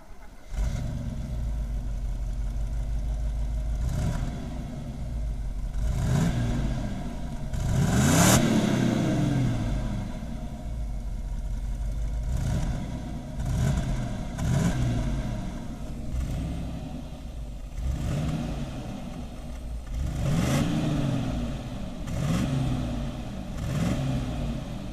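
Mercedes-Benz 350 SLC's 3.5-litre V8 running at idle and revved up and back down in about ten short blips of the throttle, each a quick rise and fall in pitch.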